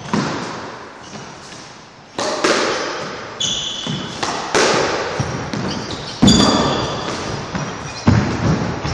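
Squash rally: the ball cracking off rackets and the court walls about six times, each hit ringing out in the echoing court, with short squeaks from court shoes on the wooden floor.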